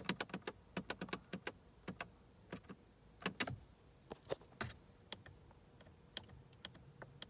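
Light plastic clicks of a car's dashboard menu buttons being pressed to scroll through the instrument-cluster display. A quick run of clicks comes in the first second and a half, then slower, irregular ones.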